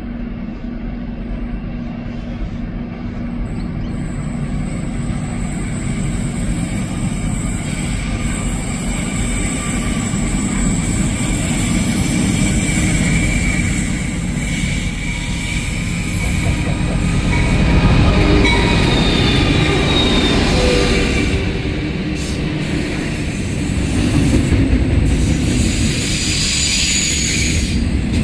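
Pacific National NR class diesel-electric locomotives approaching and passing, their engines running, then container wagons rolling by on a curve. The rumble builds steadily, with brief high-pitched wheel squeals about two-thirds of the way through.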